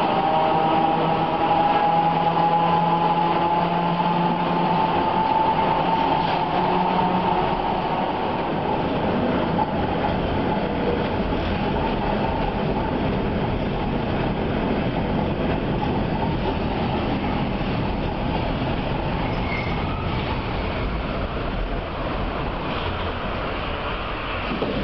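Electric tram heard from inside the passenger car while running: a whine rising in pitch over the first several seconds as it picks up speed, then a steady rumble of wheels on rails.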